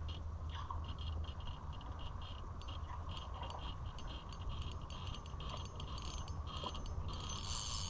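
Fishing reel ticking in irregular runs of short clicks as a hooked carp is played toward the bank, the clicks coming thickest near the end, over a low steady rumble.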